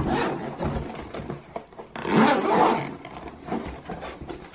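Zipper running around the edge of a moulded hard-shell carrying case as it is pulled open. There are two main pulls: a short one at the start and a longer, louder run about two seconds in.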